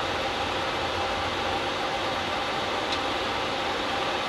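Steady background noise in an Airbus A350 cockpit: an even hiss of ventilation and aircraft noise with faint steady hums, and one brief tick about three seconds in.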